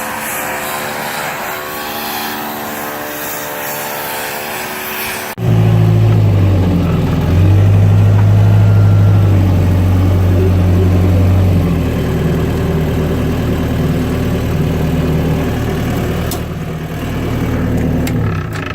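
An engine running steadily, then, after an abrupt cut about five seconds in, a louder, deeper engine whose speed steps up and back down a couple of times.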